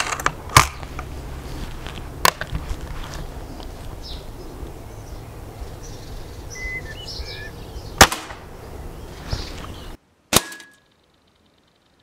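A break-barrel spring-piston air rifle, a Remington Express in .177, is handled and fired: a loud clack soon after the start and a lighter click a couple of seconds later, then the sharp crack of a single shot about eight seconds in. Birds chirp faintly over a steady outdoor background, which cuts out near the end, followed by one short snap.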